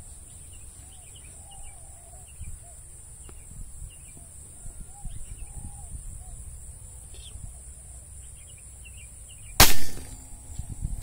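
Faint scattered bird calls, then about nine and a half seconds in a single sharp, loud air rifle shot fired at a spotted dove.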